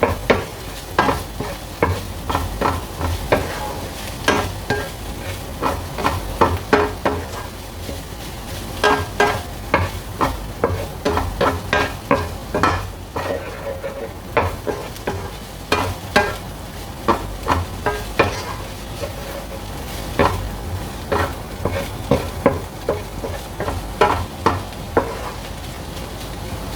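Minced beef, pepper and onion frying in a non-stick frying pan, a steady sizzle, while a utensil stirs and scrapes the mince, with frequent sharp irregular taps against the pan.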